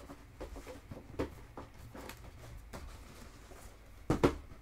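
Handling noise from a cardboard plastic-model-kit box and its contents: light rustles and taps, then a louder double knock about four seconds in.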